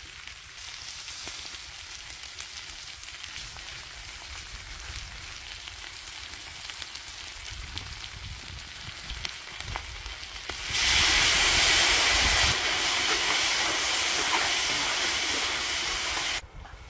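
Chicken frying in hot oil: a low, steady sizzle, then a much louder sizzle starting about two-thirds of the way through that cuts off suddenly shortly before the end.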